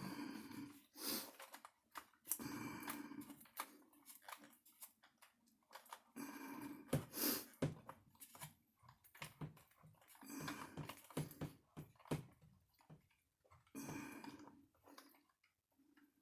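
Intermittent clicks and rustles of hands working small plastic RC-car parts and a shock absorber into place, broken by short low vocal sounds from the person doing it.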